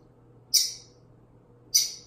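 Short, high-pitched nasal squeaks from a Doberman, twice about a second apart: it is whining as it begs for food.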